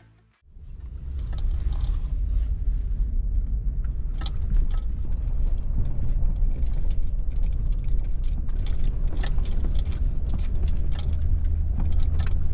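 A vehicle driving, with a steady low engine and road rumble and frequent small rattles and clicks.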